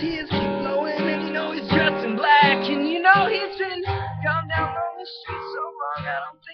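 A man singing while strumming an acoustic guitar, with the strums thinning out and stopping near the end.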